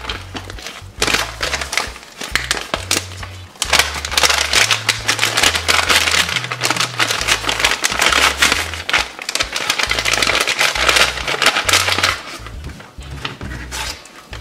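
Thin plastic crinkling and tearing as an MRE flameless ration heater's bag is torn open and handled, over background music with a stepping bass line.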